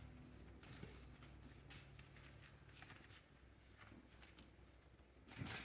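Near silence: faint, scattered scratchy rustles of pug puppies' paws and bodies on a fabric mat and blanket, with one brief louder rustle near the end.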